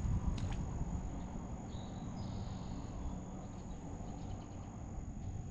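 Steady high-pitched insect drone over low wind rumble on the microphone, with a faint, higher buzz for about a second and a half near the middle.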